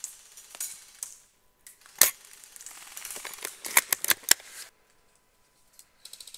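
Tokyo Marui VSR spring-powered bolt-action airsoft rifle, picked up by the scope-mounted camera's microphone. After a second of soft handling noise, one sharp shot snaps out about two seconds in. Then comes a run of quick clicks and clacks for about a second and a half as the bolt is worked to re-cock it.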